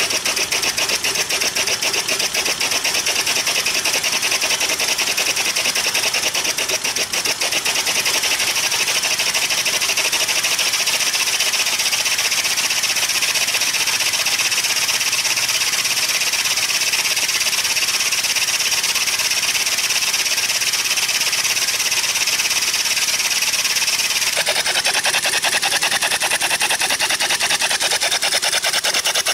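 Small single-cylinder lawn mower engine converted to run on compressed air, running fast with no muffler: a loud, rapid, even stream of hissing exhaust puffs. Near the end the tone changes and the lower part thins out.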